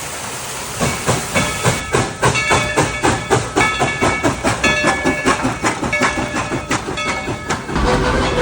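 Narrow-gauge coal-fired steam locomotive chuffing in a quick, even rhythm of exhaust beats, about four a second, with metallic ringing over it. The beats start about a second in and give way to a steadier rumble near the end.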